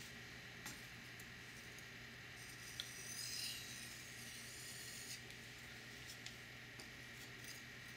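Faint rubbing and hissing of a Spyderco Mule Team knife's Maxamet steel blade stroked edge-first across a wet 3000-grit silicon carbide water stone. One stroke stands out about three seconds in, with a few light clicks of the blade touching the stone.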